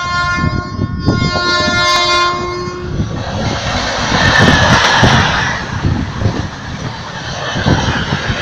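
Diesel locomotive's horn sounding a chord of steady tones, breaking off about a second in, then sounding again until about three seconds in. The locomotive, an Alstom Prima with an EMD 16-645E3 engine, then runs past, followed by a long train of container wagons rolling by with a loud rumble and repeated wheel clatter.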